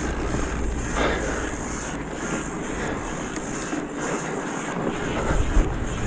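Wind buffeting the microphone over the steady running noise of a ridden vehicle on a wet, muddy trail, with a low thump about five and a half seconds in.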